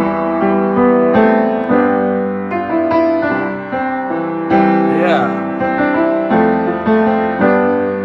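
Piano chords played slowly and evenly, a new chord about every half second to second over a held low note, as a simple pop song's chords are worked out by ear. A brief rising tone slides up over the chords about five seconds in.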